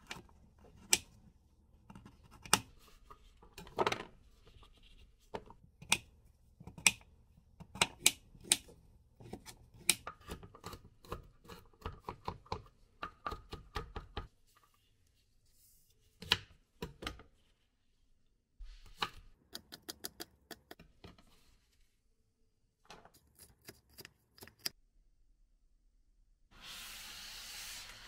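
A chef's knife chopping on a plastic cutting board, slicing carrots and mincing garlic: sharp knocks of the blade on the board, irregular at first and quickening into rapid runs, with a few pauses. A brief rustling noise near the end.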